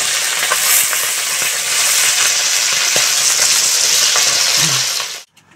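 Whole galunggong (round scad) fish sizzling loudly as they fry in hot oil in an aluminium wok, with a few light scrapes of a metal spatula. The sizzle cuts off suddenly shortly before the end.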